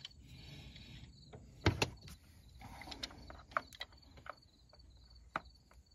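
Pliers working at the PCV valve on a Ford 2.7 EcoBoost engine: scattered sharp clicks and taps of the tool and hand on the fittings, the loudest about a second and a half in.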